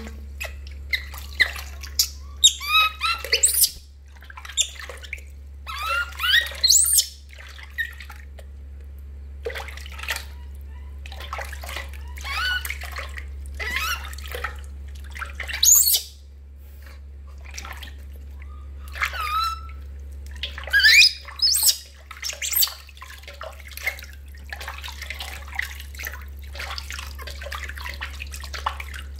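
Baby macaque crying in short, high-pitched squeals that slide in pitch, coming again and again, over water splashing and sloshing in a metal basin as it is washed.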